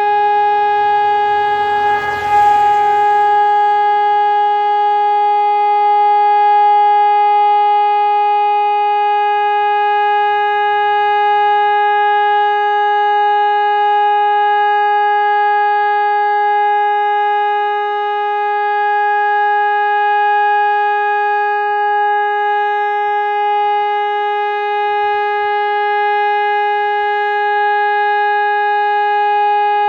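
PSE Electronics EPS 500 single-tone electronic siren sounding the 'Test' signal: one steady, unbroken tone with a strong set of overtones. A brief rush of noise is heard about two seconds in.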